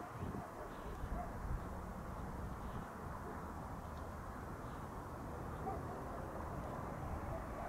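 Faint, steady rumble of a distant three-engined Dassault Falcon business jet's engines at low power as it taxis, with a few faint bird chirps.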